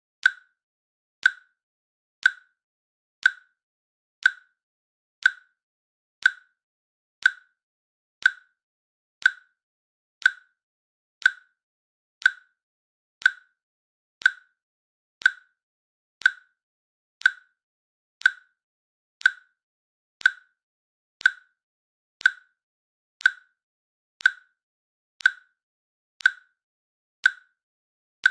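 Countdown timer's click sound effect ticking once a second: a short, sharp, evenly spaced click with silence between.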